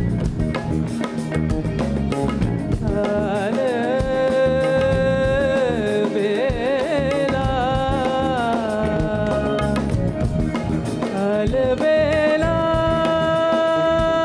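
Male voice singing Hindustani classical music without clear words: ornamented, wavering phrases that glide up and down, then a long steady held note near the end, over instrumental accompaniment with drums.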